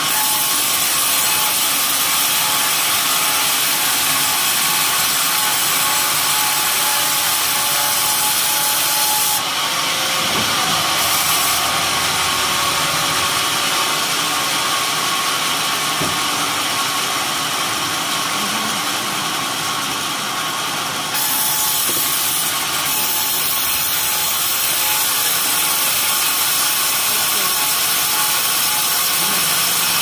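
Large vertical band saw at a sawmill running and cutting coconut-trunk (glugu) timber: a steady machine hum with a high hiss of the blade in the wood, which changes level abruptly about nine seconds and again about twenty-one seconds in.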